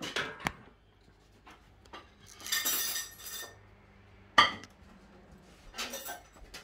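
Kitchenware clinking: metal utensils knocking against pots and dishes in a few separate clinks, a short rattling stretch with some ringing about two and a half seconds in, and the sharpest clink about four and a half seconds in.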